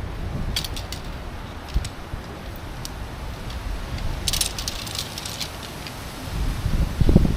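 Strong wind gusting over the microphone, with a few light rattles and clicks scattered through it, about a second apart, and a stronger gust near the end.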